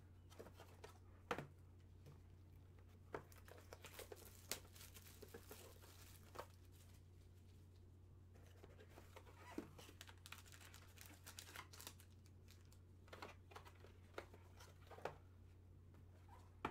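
Quiet, scattered crinkling, tearing and tapping of cardboard trading-card boxes and their wrapping being opened and handled, over a low steady hum.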